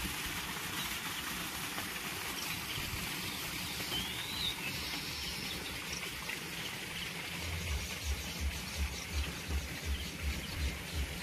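Rural outdoor ambience: a steady high hiss of insects and birds, with a short bird chirp about four seconds in. Past the middle, a low thumping beat of about two and a half pulses a second sets in.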